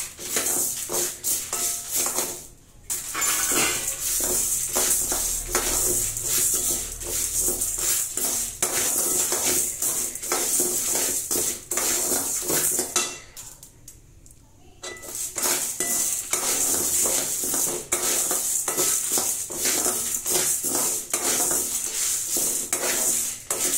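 Metal spoon stirring whole black urad dal and dried red chillies in an aluminium kadai on a gas stove, scraping and clinking against the pan in quick repeated strokes. There are two short pauses, one about two and a half seconds in and a longer one just past the middle.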